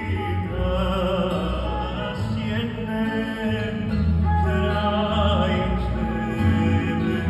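Live acoustic trio playing a Bosnian sevdalinka on long-necked lute, kemençe and double bass, the bass holding long low notes under a wavering melody.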